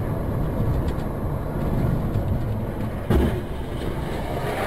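Steady low rumble of a moving car's engine and road noise, heard from inside the car, with one sudden loud thump about three seconds in.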